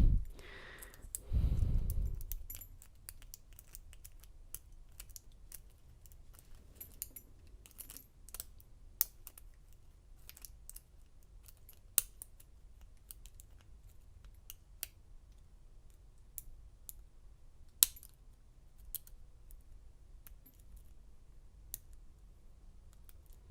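Small metal lock picks and tools being handled and sorted on a workbench: light, irregular clicks and taps, with a dull thump about a second and a half in.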